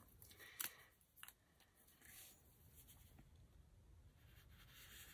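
Near silence, with a few faint clicks and rustles of paper and planner supplies being handled, the clearest a little after half a second in and again just over a second in.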